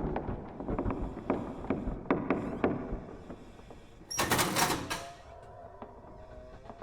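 Haunted-house sound effects: scattered knocks and clicks, then a loud, sharp crash about four seconds in that dies away within a second. A faint, thin drawn-out tone follows, like a slow creak.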